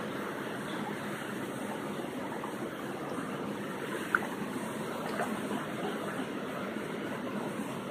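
Shallow stream water running steadily over rocks, with one brief high-pitched blip about four seconds in.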